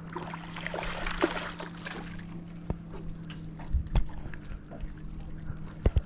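Small fishing boat on the water: a steady low hum with water slapping at the hull and a few sharp knocks against the boat, the loudest pair near the end.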